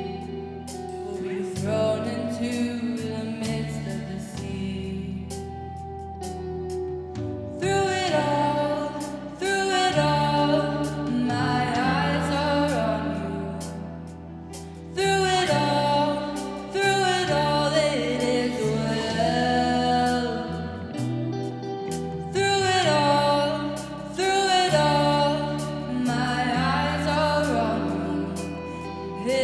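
Congregational worship song: singing over band or keyboard accompaniment, quieter for the first several seconds and then fuller.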